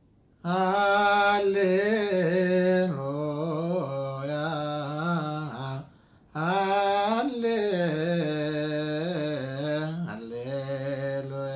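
A solo male voice singing an Ethiopian Orthodox abun hymn in Ge'ez, unaccompanied, with long wavering melismatic held notes. It comes in two phrases, with a short breath break about six seconds in.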